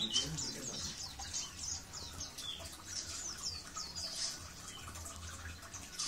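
Oriental white-eye (pleci) chirping in quick, high notes that each sweep downward, a few a second, against faint water sounds played to train its song.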